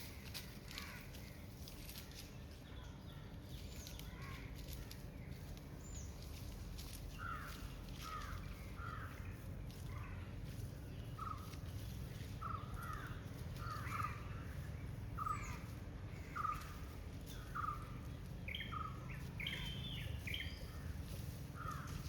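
Birds calling outdoors: a series of short, repeated calls about one a second, starting about a third of the way in, over a steady low rumble of outdoor background noise.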